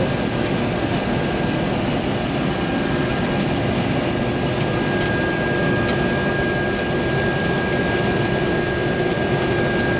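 International Harvester 1480 Axial-Flow combine running steadily while cutting wheat, heard from inside the cab: an even machine drone with a steady whine over it.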